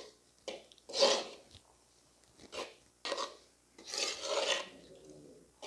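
Metal spatula scraping and stirring rice flour into gravy in an earthenware pot, in a string of about six short rasping strokes.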